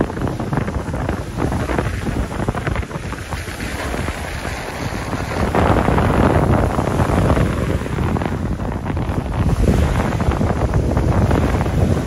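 Strong wind buffeting the microphone, with small wind-driven lake waves breaking and washing onto a gravel shore. The surf swells louder about halfway through and again near the end.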